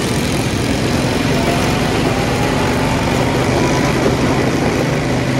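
A small vehicle engine running steadily close by, its pitch creeping up slightly over the first few seconds.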